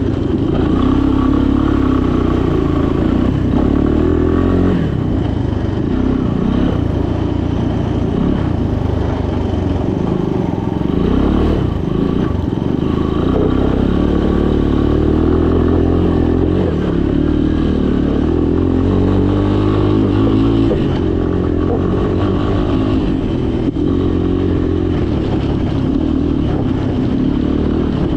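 Three-wheeler ATV engine running as it is ridden, its revs rising and falling over several seconds at a time.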